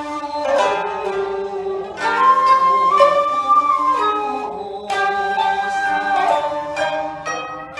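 Jiuta chamber music: sangen (shamisen) and koto plucked, a shakuhachi bamboo flute holding long notes, one of them for about two seconds in the middle, and a woman singing in jiuta style.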